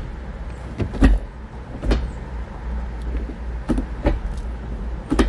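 Manual gear shifter of a 5th-gen Camaro being worked through the gates by hand, the lever clunking into and out of gear about half a dozen times at uneven intervals over a low rumble.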